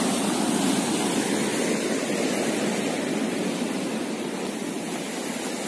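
Steady rush of sea surf breaking against rocks, easing a little toward the end.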